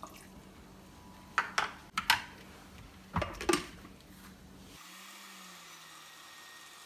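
A handful of sharp knocks and clinks as a plastic lid and measuring cup are handled against a glass blender jar and the lid is set down on it.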